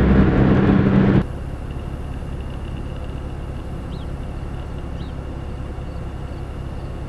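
Road and engine noise inside a moving car, cutting off abruptly about a second in. A quieter steady low rumble follows, with a faint high tone and two short high chirps.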